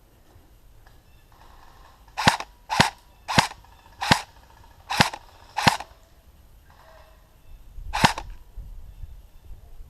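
Airsoft rifle fired in single shots, seven sharp cracks: six in quick succession, each half a second to a second apart, then one more about two seconds later.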